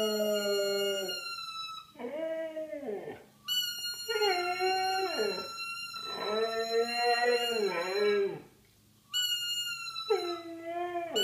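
Siberian husky howling along with a toy trumpet. The husky gives four long, wavering howls that drop in pitch at the end. They alternate and overlap with the trumpet's steady, high, unchanging blown tone, which sounds three times.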